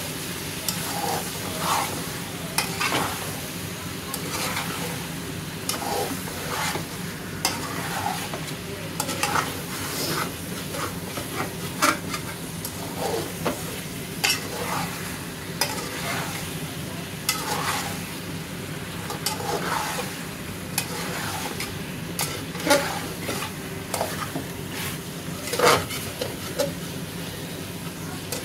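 Slotted metal spatula stirring and scraping cauliflower, potato and chicken in masala around an aluminium pressure-cooker pot, the food sizzling as it fries. Irregular scrapes and knocks of metal on the pot over a steady sizzle.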